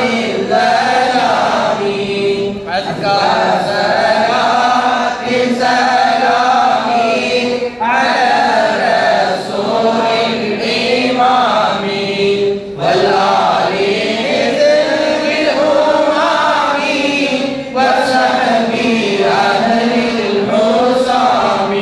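A man chanting Arabic devotional verses of a Maulid into a microphone, in flowing melodic phrases about five seconds long with brief breaks between them.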